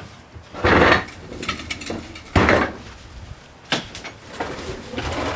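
Knocks, clunks and rustling from sawmill parts and packing material being handled while the boxes are unpacked. There are three louder knocks: just under a second in, about two and a half seconds in, and a short one near four seconds.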